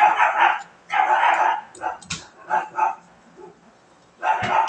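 A dog barking repeatedly in quick loud runs, with a pause of about a second before a last bark near the end.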